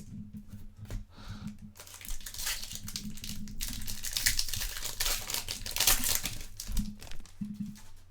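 Foil trading-card pack wrappers being crinkled and torn open, densest a few seconds in, with small clicks throughout.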